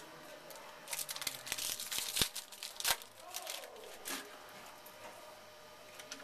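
A trading-card pack's wrapper crinkling and tearing as it is opened. A dense run of crackles starts about a second in and lasts about two seconds, and a few softer crinkles follow about four seconds in.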